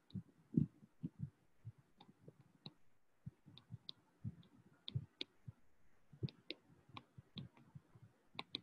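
Stylus tapping and clicking faintly and irregularly on a tablet screen during handwriting.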